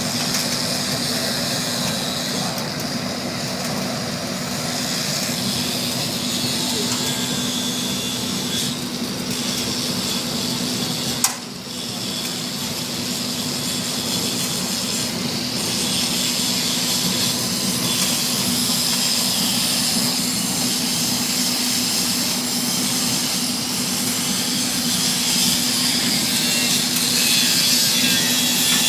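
A 3500 kW biomass sawdust burner firing at full output: a steady, dense roar of the flame and blower with a constant low hum. A single sharp click comes about eleven seconds in.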